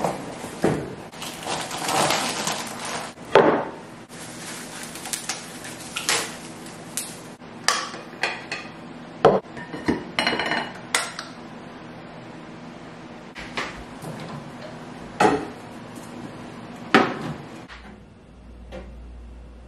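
Cardboard box rustling as cookware is unpacked, then sharp clinks and knocks of pots, pans and lids being handled and set down on a table. Near the end it drops to a quieter low steady hum.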